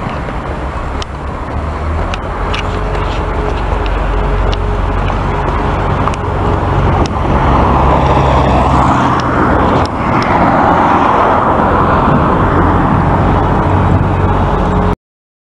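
Motor vehicle running, a steady low engine hum under road noise that grows louder about halfway through, then cuts off suddenly near the end.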